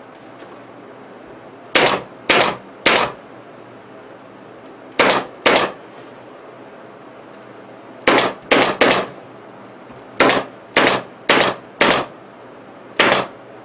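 Pneumatic upholstery staple gun firing staples through fabric to back-tack it along the top edge of a wall, about thirteen sharp shots in uneven groups of two to four.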